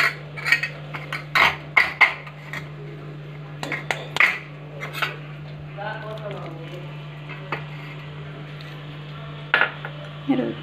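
A spoon and bowl clinking and scraping against a stainless steel plate: a string of sharp clinks over the first five seconds and a few more near the end, over a steady low hum.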